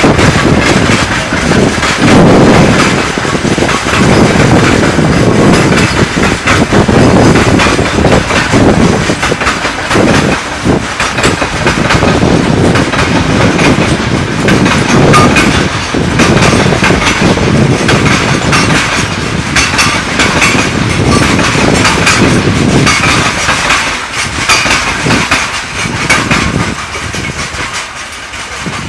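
Train departing behind a 2TE10M diesel locomotive, its wagons rolling past with a continuous clatter of wheels over the rail joints. The sound fades over the last few seconds as the train draws away.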